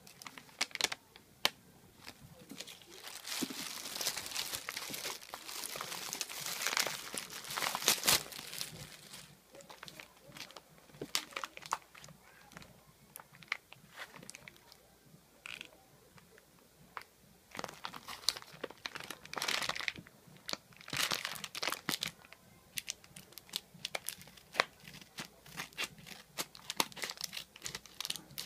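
Packaging being torn open and crumpled by hand: irregular crinkling and tearing with sharp clicks, coming in bursts with quieter gaps between.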